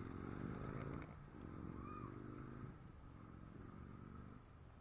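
A low, drawn-out animal call repeated three times, each call lasting just over a second with short gaps between.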